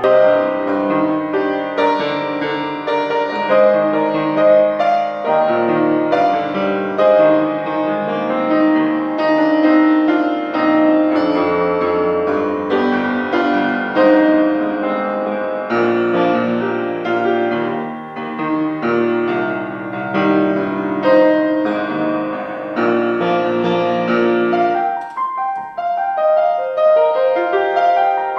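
Piano music: a piano plays chords over bass notes, with no singing. About 25 seconds in, the low notes drop away and only the upper register goes on.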